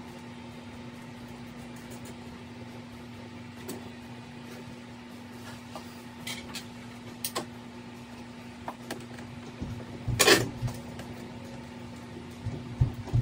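Scattered clicks and knocks from a clear plastic tote and hand tools being handled, the loudest a sharp knock about ten seconds in and a few more near the end, over a steady low hum.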